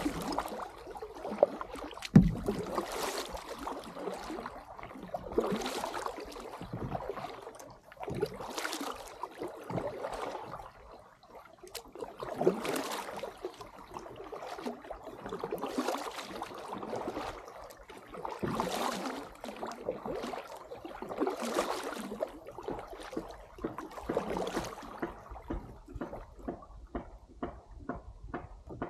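Double-bladed kayak paddle strokes dipping and pulling through the water, a splashy swell about every three seconds as the blades alternate sides, with a sharp knock about two seconds in. Near the end the strokes give way to a run of quick light ticks of water.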